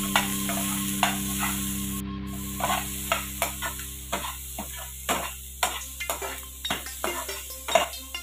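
Chopped onion and garlic sizzling in oil in a nonstick frying pan, stirred with a slotted metal spatula that scrapes and clicks against the pan. The strokes come two or three a second from about two and a half seconds in.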